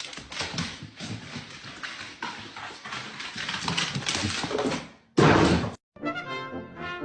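Clicks and scuffles of a dog moving about in a small room, followed about five seconds in by a brief, very loud burst of noise that cuts off abruptly. Brass music starts near the end.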